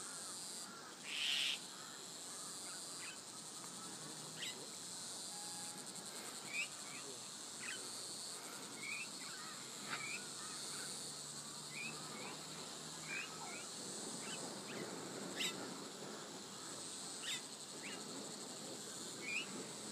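Rural outdoor ambience: a steady, high insect drone with short bird chirps scattered throughout, and a brief noisy burst about a second in.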